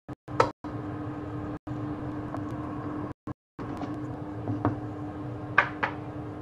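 Wooden spoon stirring curry in a metal pan, with a few sharp knocks and scrapes against the pan, two of them close together near the end. Under it is a steady mechanical hum with a low held tone, and the sound cuts out to silence briefly several times.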